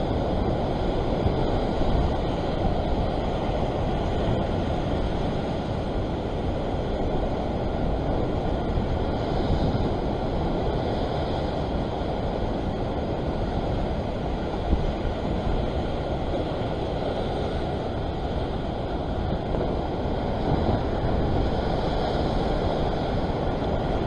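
Ocean surf washing and churning over a rock ledge, a steady rushing noise, with wind on the microphone.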